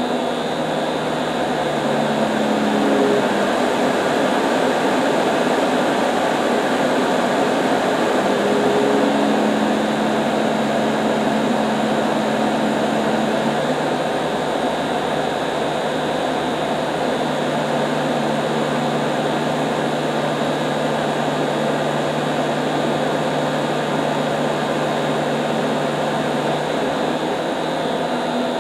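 AC blower motor running under PWM speed control: a steady rush of air with a low motor hum that shifts in pitch a few times.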